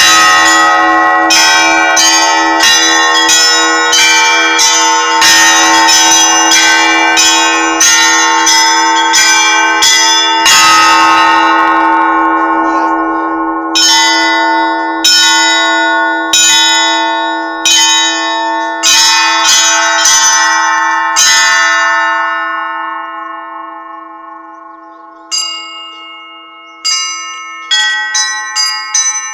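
Russian Orthodox church bells rung in a festal peal (zvon): quick strikes on several smaller bells, about two a second, over the steady hum of a larger bell. After a short break midway the strikes come slower and die away, and quick strikes start up again near the end.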